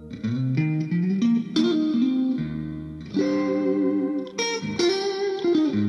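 Background music: a guitar riff with effects, its notes changing every half second or so.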